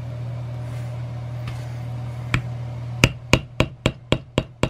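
Mallet striking a metal leather stamping tool, pressing a border pattern into tooling leather: a single tap about two seconds in, then a quick even run of sharp taps, about four a second, through the last second and a half. A steady low hum runs underneath.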